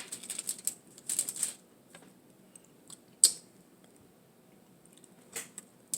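Close-up crunching and chewing of a toasted bacon tuna melt sandwich: a cluster of crisp crackles in the first second and a half, then a few separate sharp clicks.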